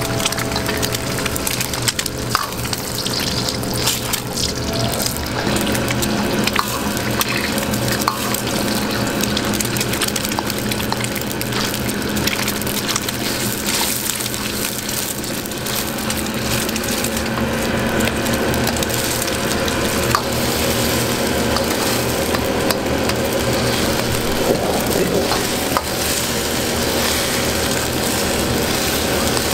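Eggs sizzling in hot oil in a wok while a metal wok ladle stirs and scrambles them, with occasional ladle clicks against the pan. A steady low hum runs underneath from about five seconds in.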